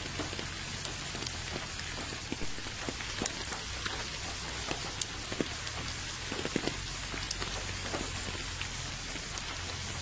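Steady rain falling into puddles: an even hiss of rain with separate drops landing sharply here and there.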